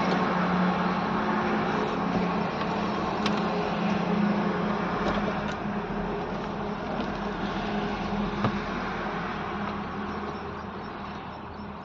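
BharatBenz truck's diesel engine idling, heard from inside the cab as a steady hum that slowly fades over the last few seconds. A couple of light clicks come from hands working the dashboard trim panel.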